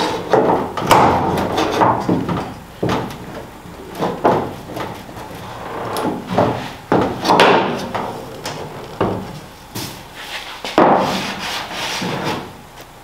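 A wooden block and the deck lid knocking against the sheet-metal edge of the trunk opening, with wood scraping on metal, as the edge is bent down to fit under the lid. The knocks are irregular, about one a second, and ease off near the end.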